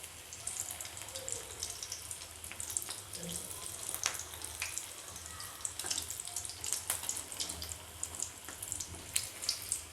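Samosas deep-frying in oil on low heat: a steady sizzle with many small crackles and pops.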